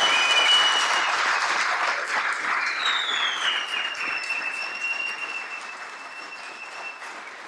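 Audience applauding, strongest at first and fading over the last few seconds. A high whistling tone slides down in pitch about three seconds in and holds for several seconds.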